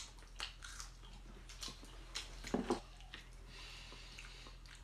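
A person chewing and biting food close to the microphone, eating pork knuckle with raw garlic: scattered small clicks and crunches of the chewing.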